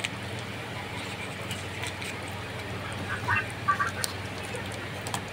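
A pot of soup simmering on a stove: a steady bubbling hiss over a low hum, with a few short chirping sounds about three seconds in.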